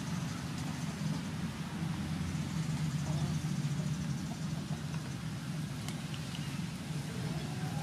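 Steady low rumble, like a running engine or traffic, with a few faint clicks of a cooked prawn's shell being pulled apart by hand.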